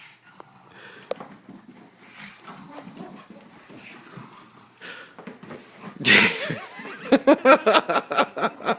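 A pug and a mastiff puppy making play noises. About six seconds in it turns loud, with a quick run of short pitched sounds, several a second.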